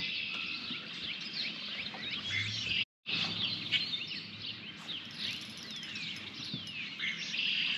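Several songbirds chirping and singing over a faint outdoor hush, many short calls and sweeping notes overlapping. The sound drops out completely for a moment about three seconds in.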